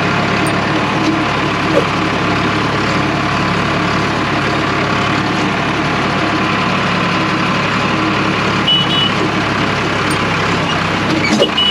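A motor vehicle engine running steadily, with short high beeps about nine seconds in and again near the end.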